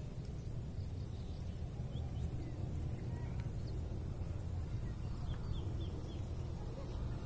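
Outdoor ambience: a steady low rumble, with faint short bird chirps a few times, twice in the middle and in a quick run of three to four a little past halfway.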